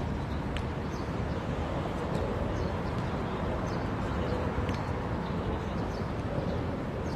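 Outdoor team-match ambience: a steady low rumble with faint distant voices and a few sharp knocks, the clearest right at the start and about half a second in.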